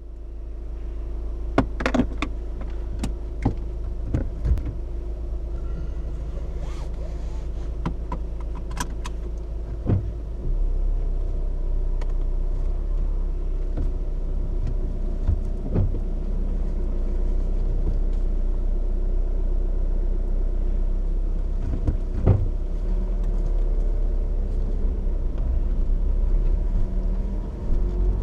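Honda CR-V's 1.6 i-DTEC four-cylinder turbodiesel running while the car drives, heard as a steady low rumble with scattered clicks and knocks. The low rumble shifts about ten seconds in.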